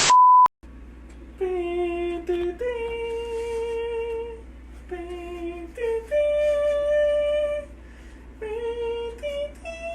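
A short, loud, high beep, then a person humming a slow tune in held notes, each about a second long with short breaks between.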